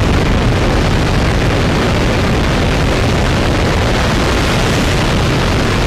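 SLS rocket engine firing on a test stand: a loud, steady rush of exhaust noise that holds at one level throughout.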